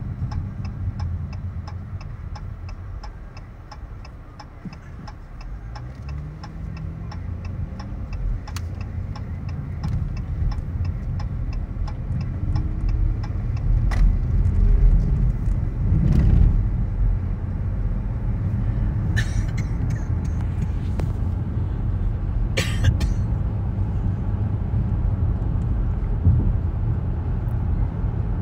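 Car interior: a turn signal ticks steadily for the first several seconds, then the engine pitch rises as the car pulls away and accelerates. Steady engine and road rumble follows while it cruises, broken by two brief hissing noises about two-thirds through.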